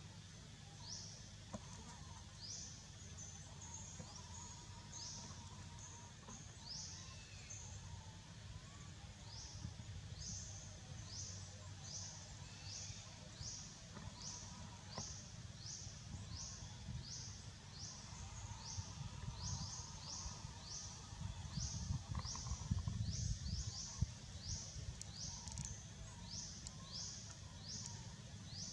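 Forest ambience: a high, rising chirp repeated about one and a half times a second, over a low rumble of wind on the microphone that grows louder a little past the middle.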